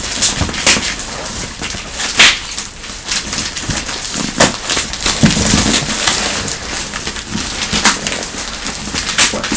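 Cardboard shipping box being handled and pulled open: rustling and scraping of cardboard with repeated sharp cracks and knocks.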